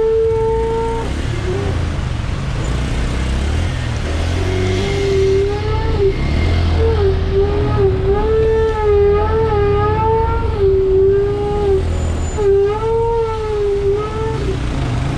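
A bus engine running with a steady low rumble as the bus crawls along a rough, rocky track. Over it a pitched tone is held briefly at the start, then rises and falls in short wavering phrases from about four seconds in.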